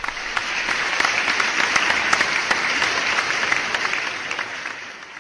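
Audience applauding: a dense patter of many hands clapping, which fades out near the end.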